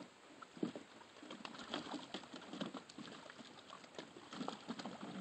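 German shepherd puppies pawing and splashing in the shallow water of a plastic kiddie pool: light, irregular splashes and patters, with one sharper splash a little over half a second in.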